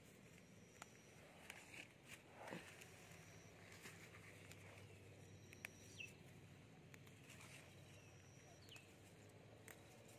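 Near silence: faint rustling and soft snaps as young mugwort shoots are pinched off by hand, with a faint thin high call recurring every couple of seconds.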